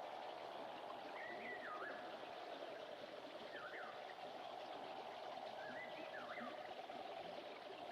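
Mountain stream ambience: water running steadily, with a bird giving four short chirps that sweep up and down in pitch.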